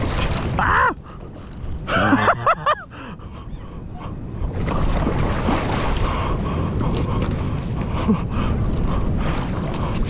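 Wind buffeting the microphone, broken about two seconds in by a quick run of four or five laughing yelps, with a short falling vocal cry just before.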